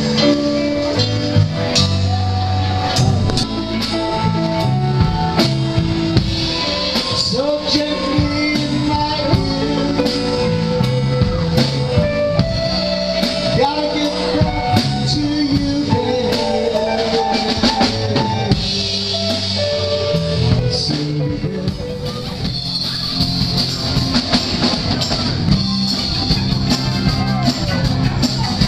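Live rock band playing: a drum kit keeping a steady beat under electric guitars, with bending guitar lines.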